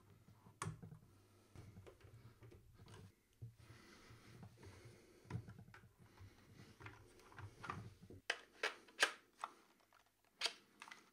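Faint handling of the UHK 60 v2 split keyboard's plastic parts, with scattered sharp clicks, several in quick succession in the last three seconds, as the feet and palm rests are fitted and the two halves put together.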